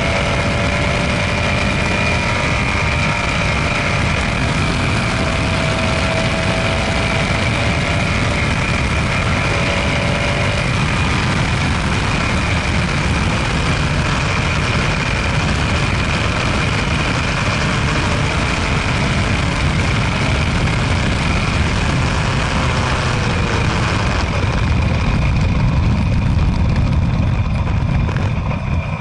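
Estonia 21M single-seater racing car's engine heard from the open cockpit, running hard through slowing for corners and accelerating again, with a steady rush of wind and road noise.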